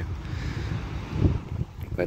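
Wind buffeting the microphone outdoors: a low, uneven rumble with a faint hiss above it, swelling briefly about a second in.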